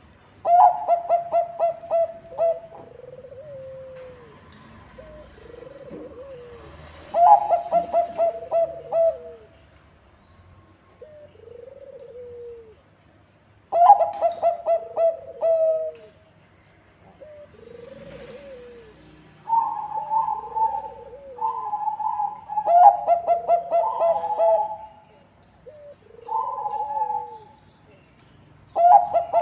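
Bangkok perkutut (zebra dove) cooing. Repeated song phrases each open with a quick stuttering run of short notes and end in a held coo. Softer, lower coos fill the gaps, and the phrases come closer together near the end.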